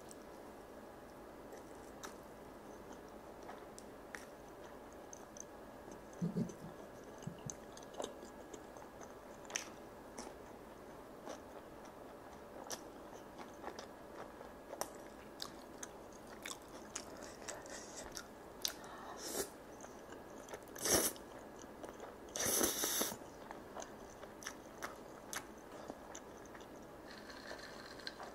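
Close-miked chewing of saucy grilled chicken and chewy rice cake off a skewer: many small wet mouth clicks and smacks, with two louder bursts about two-thirds of the way in.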